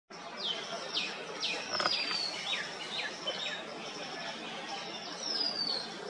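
Asian green bee-eaters calling: a run of short, high chirps that slide downward in pitch, most of them in the first three and a half seconds, with a longer falling whistle near two seconds in and again near the end, over steady background noise.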